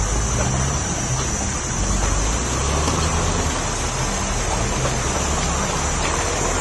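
4x4 vehicle engine running steadily with a low drone while driving a muddy off-road track, with a rushing noise of tyres and wind and a steady high-pitched hiss above it.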